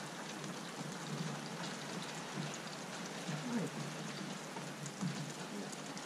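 Rain falling steadily, an even hiss with no single sound standing out.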